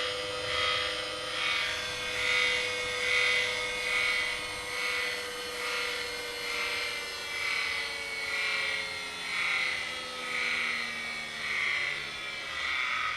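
Heavy-duty DC electric motor running at speed with a steady whine, its loudness swelling and fading about once every 0.8 seconds. The pitch sinks slightly over the second half.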